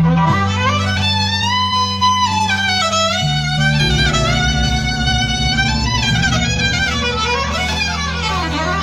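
Violin improvising with sliding, gliding notes over a steady low bass drone that shifts pitch a few times.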